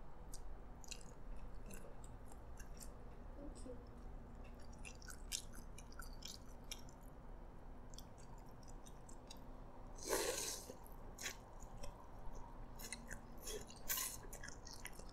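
A person chewing a mouthful of Hokkien prawn noodles: soft scattered mouth clicks, with one louder burst of noise about ten seconds in.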